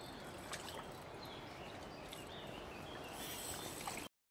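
Steady rush of flowing river water with a few short, high chirps, cut off abruptly to dead silence near the end.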